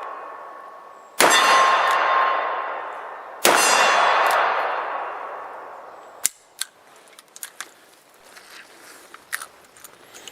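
Two shots from a Smith & Wesson Model 610 10mm revolver, about two seconds apart, each answered by a steel target plate ringing out and fading over a couple of seconds. Faint small clicks follow in the last few seconds.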